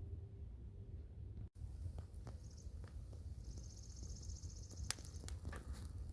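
Faint outdoor background with a steady low rumble, a high insect-like trill lasting about a second and a half in the middle, and a few light clicks, the sharpest about five seconds in.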